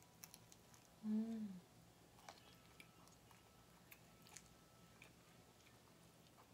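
A person chewing a mouthful of bread, with faint wet mouth clicks. About a second in, a short hum of enjoyment that falls in pitch is the loudest sound.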